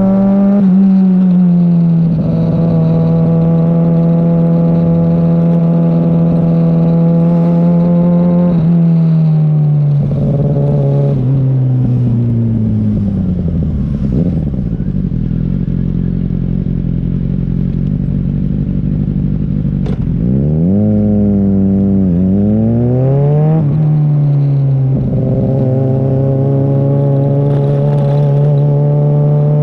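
Kawasaki Ninja ZX-6R's inline-four engine under way: it holds steady revs, then the revs fall as the bike slows about a third of the way in. Around two-thirds in it accelerates hard, the pitch climbing in quick steps through gear changes, then settles back to steady revs.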